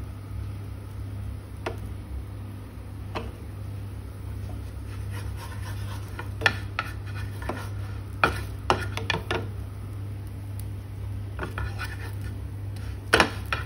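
Spatula scraping and knocking against a dosa pan as a cooked dosa is loosened and lifted off. The clicks come scattered, thicker from about halfway and loudest near the end, over a steady low hum.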